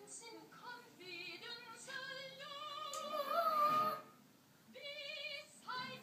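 Music with a high female voice singing. A long note is held with vibrato about three seconds in, then there is a brief lull before the singing resumes.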